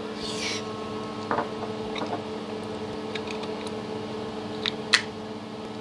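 Small clicks and a brief scrape of plastic parts being handled and fitted back into a motor circuit breaker, over a steady hum. The sharpest click comes about five seconds in.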